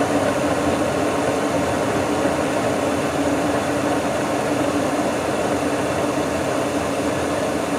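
Bryant gas furnace running just after a normal ignition: gas burners lit and the exhaust blower on, making an even whoosh with a steady low hum.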